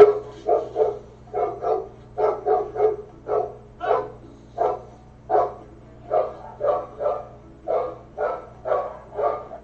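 A dog barking over and over, about twenty short barks at roughly two a second, some coming in quick pairs.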